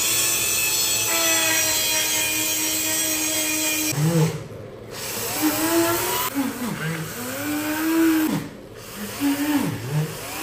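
Corded rotary tool whining at a steady high speed, then its pitch dipping and recovering again and again from about four seconds in as the bit is pressed into the 3D-printed part and bogs under the load.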